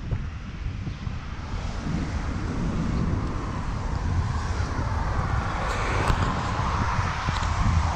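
Wind buffeting the action camera's microphone, with road traffic passing and its tyre noise swelling in the second half.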